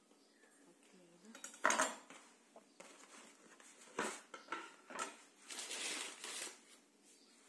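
Kitchen knife knocking on a wooden cutting board as dough is cut, the loudest knock a couple of seconds in. Then the wooden board itself knocks twice and scrapes across the counter as it is lifted and moved aside.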